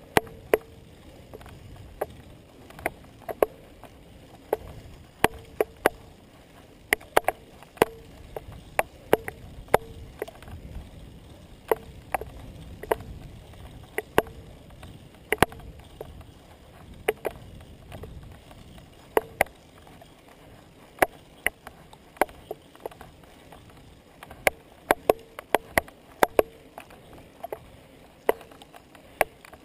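Road bicycle being ridden on a paved lane: sharp clicks and knocks from the bike and its camera mount, irregular at about one or two a second, over a low rumble of tyres and wind.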